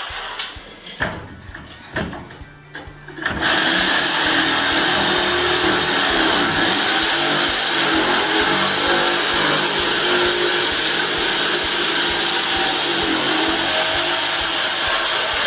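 A few light knocks, then about three seconds in a Bosch jigsaw starts and runs steadily, its blade cutting through a plaster ceiling panel, with a vacuum drawing dust through a hose attached to the saw.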